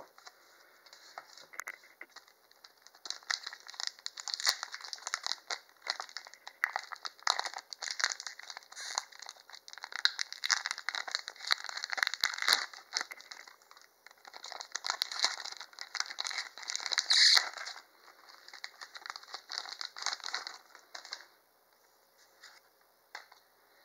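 Foil wrapper of a Pokémon TCG booster pack being opened and handled: irregular crinkling and crackling with sharp little clicks, starting a couple of seconds in and dying away near the end.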